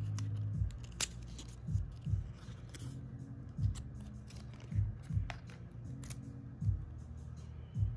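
Crisp clicks and light rustling of a cardboard lip gloss box being handled and its end flap opened, over soft background music with a low, pulsing beat.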